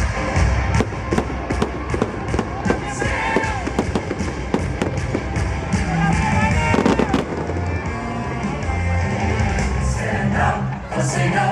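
Fireworks going off in quick succession, with many sharp bangs and crackles, over music from a medley of National Day songs.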